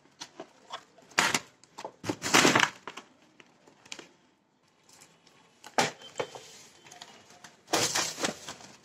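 Cardboard firework packaging being handled and pulled out of a cardboard carton: scraping and rustling in several short bursts, the longest about two seconds in and again near the end.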